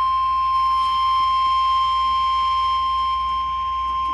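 NOAA Weather Radio warning alarm tone, a single steady high tone near 1 kHz, signalling that a new warning message is about to follow.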